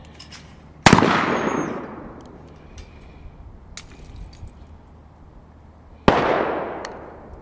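Two gunshots about five seconds apart, each a sharp crack with a tail that dies away over about a second. The first is a Thompson Contender single-shot pistol firing a .410 shell at a clay target.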